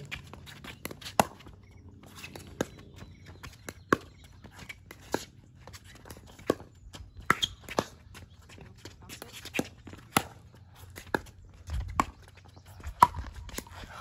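Pickleball paddles striking a plastic ball back and forth in a long rally: a string of sharp pops, roughly one to one and a half seconds apart.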